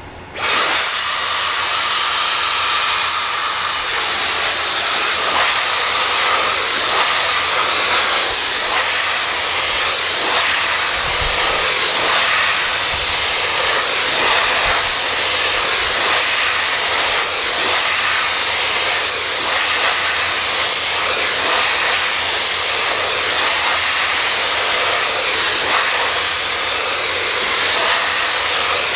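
Dyson Supersonic hair dryer switched on about half a second in, then blowing steadily: a loud, even rush of air.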